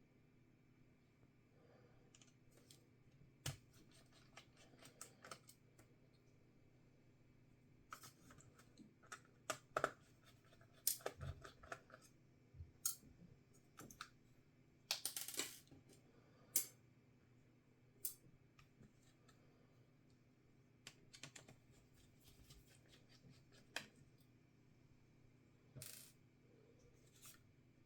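Sparse small clicks and taps of a screwdriver, spudger and small parts being handled on a laptop's chassis during disassembly, busiest in the middle, with a short scrape about halfway through.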